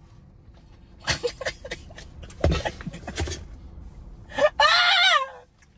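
A person laughing: a run of short breathy bursts, then a high, wavering, drawn-out laugh near the end.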